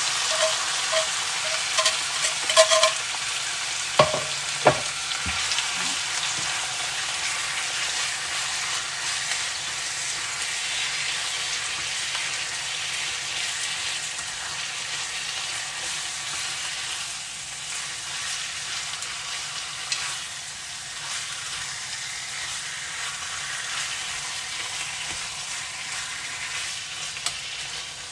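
Marinated duck pieces sizzling in hot oil and garlic in a frying pan as they go in and are stirred with chopsticks. The sizzle is loudest at first and slowly settles. Light clicks sound in the first few seconds, and two sharp knocks come about four seconds in.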